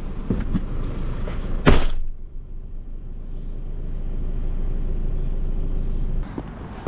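A few knocks of handling, then a car door shuts with a loud thud about two seconds in. After it comes the steady low rumble of the car heard from inside the closed cabin, muffled with little treble.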